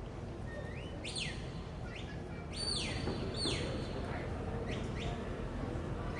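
Handler's herding whistle giving commands to a working border collie: a string of about seven sharp, high whistles, most sweeping quickly upward, some held briefly and then sliding back down. A steady low background noise runs underneath.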